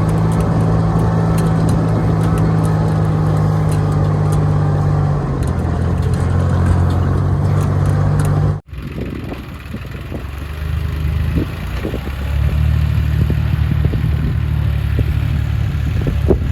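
A motor engine running steadily at a low, even pitch. It cuts off abruptly about eight and a half seconds in, then an engine runs again at a lower, slightly wavering pitch, with a few light knocks.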